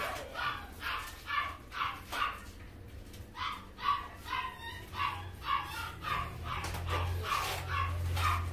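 An animal's short, high calls, repeated about twice a second, over a low hum that grows louder in the last couple of seconds.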